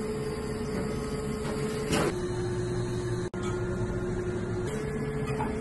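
Gelato batch freezer running as it extrudes ice cream: a steady motor hum whose main tone steps down about two seconds in and back up near the end, with a brief knock about two seconds in.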